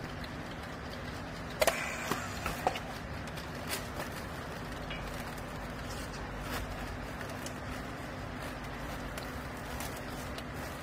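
Steady machine hum with a low tone, and a few sharp knocks about two seconds in.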